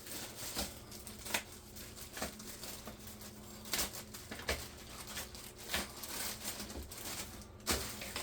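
Irregular light clicks and taps with some crinkling, as small plastic kit parts and their bags are handled and set down on a work surface.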